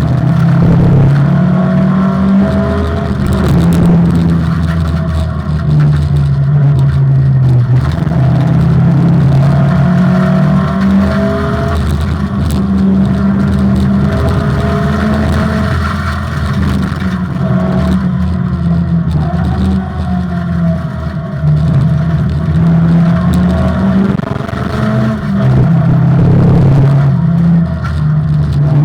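Opel Manta rally car's engine driven hard, revving up through the gears and dropping in pitch at each shift or lift, over and over.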